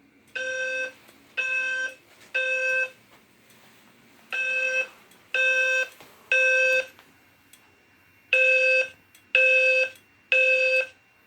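Fire alarm evacuation tone sounding in the Temporal 3 pattern: three buzzy half-second beeps, then a pause of about a second and a half. The pattern repeats three times, and a fourth group begins near the end. A faint steady high tone joins about halfway through.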